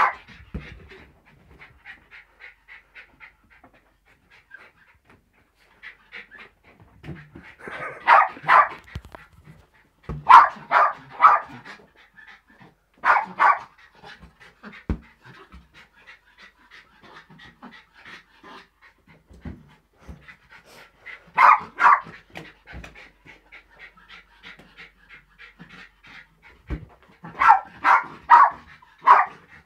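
Small Jack Russell terrier panting hard and fast while playing, broken five times by loud bursts of three or four quick yaps.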